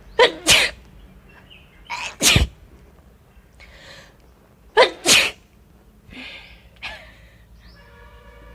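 A woman sneezing three times, about two and a half seconds apart, each sneeze in two parts: a sharp intake and then the loud burst. The sneezes are set off by sniffing chilli powder.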